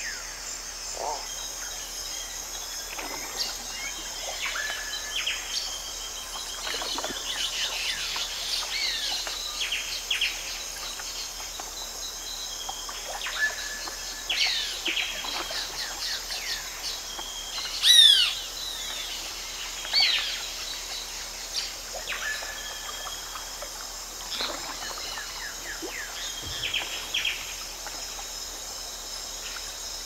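Many birds calling in a rainforest chorus: short, mostly down-sweeping calls and chirps scattered throughout, over a steady high insect hum. The loudest call comes about eighteen seconds in.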